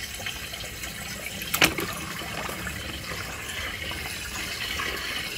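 Water swirling steadily down a whirlpool vortex, with one sharp splash about a second and a half in as a diecast toy car drops into the water.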